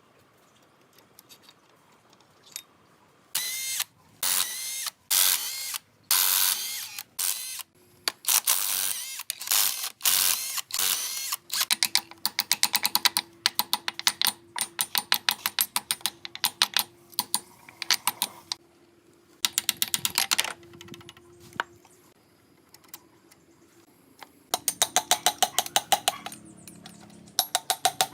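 Ratchet wrench being worked, rapid clicking in repeated bursts, with a faint steady hum through the middle stretch.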